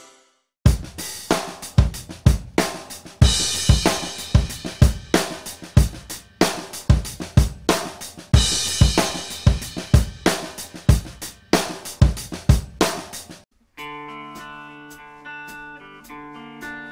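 A drum-kit beat with kick, snare and cymbal crashes, about three hits a second, that stops abruptly about 13 seconds in. After a short gap, held guitar notes begin to ring.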